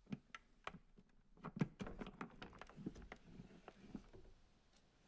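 Light, irregular taps and clicks on a wooden surface, a dozen or so short knocks scattered over a few seconds with no steady buzz.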